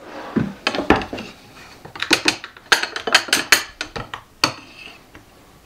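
Small metal pry tool working under an oak block that is pinned to the workbench top: a run of sharp metallic clicks and scrapes that dies down about a second before the end.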